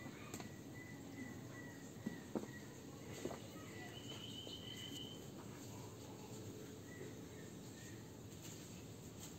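Faint outdoor background noise with thin, high chirping calls, a broken one in the first few seconds and a short one about four seconds in, and a few soft taps in the first few seconds.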